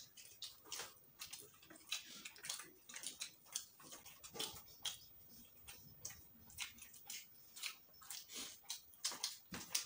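People chewing and smacking their lips while eating by hand: many quick, irregular wet mouth clicks and smacks.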